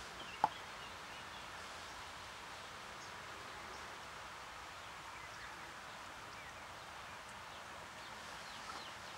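Outdoor garden ambience: a steady faint hiss of background noise with scattered faint short chirps, and a single sharp click about half a second in.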